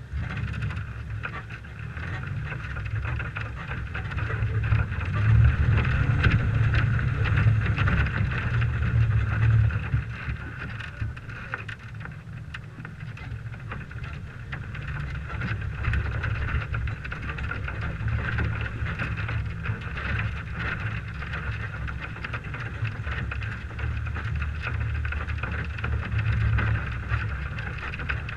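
A 1998 Toyota 4Runner driving over a dirt track, heard from its hood: a steady low engine and tyre rumble with wind on the microphone, loudest from about four to ten seconds in.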